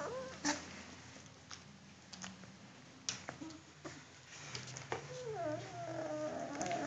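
Belgian Malinois puppies whining: wavering, sliding whimpers that start about three seconds in and grow longer towards the end. A few sharp clicks come before them, the loudest about half a second in.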